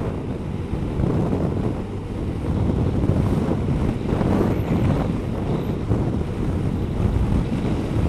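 Wind buffeting the microphone of a camera on a moving motorcycle, with the Kawasaki ZZR-1200's engine and tyre noise on the wet road underneath.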